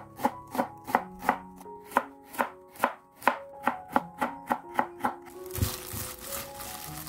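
Chef's knife slicing an onion and then a carrot into thin strips on a wooden cutting board, about three sharp knife strikes a second for five seconds. Near the end, a plastic-gloved hand rustles and crinkles as it mixes the vegetables with seasoning in a glass bowl.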